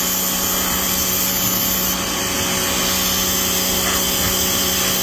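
Electric pressure washer running steadily, its motor and pump humming under the constant rush of the water jet from the spray gun.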